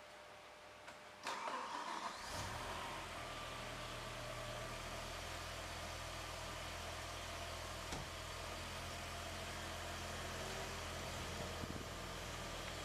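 BMW E60 M5's V10 engine being started: it cranks briefly about a second in, catches, and settles into a steady idle.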